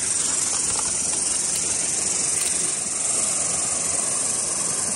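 Cicada chorus, a steady high buzz, under a continuous close rustle of flax leaves and undergrowth brushing past as someone pushes through dense bush.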